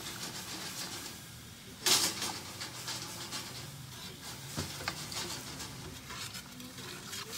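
A utensil stirring and scraping in a cast iron skillet of boiling sugar and water, over a steady hiss, with scattered clicks and one brief, louder burst about two seconds in.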